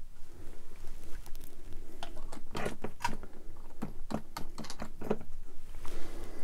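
Fingers handling a small plastic scale-model engine, giving an irregular run of light clicks and taps.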